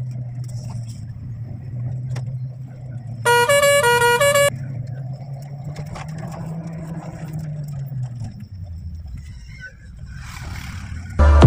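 An old jeep's engine running steadily while driving, heard from inside the cab; about three seconds in, a horn sounds for a little over a second as a quick run of changing notes. Near the end the engine note drops lower.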